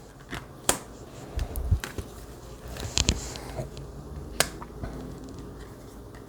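Tarot cards being handled and laid down: a scattering of sharp clicks and light slaps, with a few soft thumps, the loudest taps about three and four and a half seconds in.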